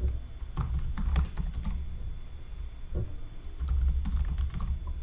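Typing on a computer keyboard in short runs of keystrokes with brief pauses between them.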